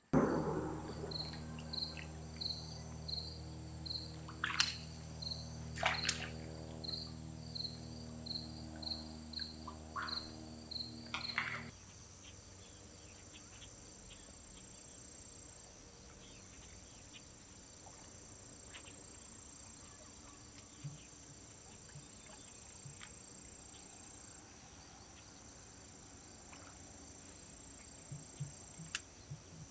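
Crickets and other insects calling steadily, with a regular high chirp a little under twice a second. For about the first twelve seconds a steady mechanical hum of several tones runs under them, with a few sharp clicks, and it cuts off suddenly.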